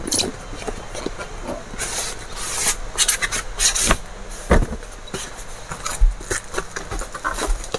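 Handling noise: irregular rustling, with several sharper knocks and clicks, as items are moved and handled.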